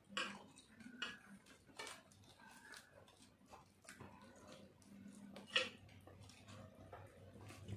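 Soft eating sounds of two people eating rice by hand: chewing and fingers mixing rice on the plates, heard as a run of small clicks and smacks, with one sharper click about five and a half seconds in.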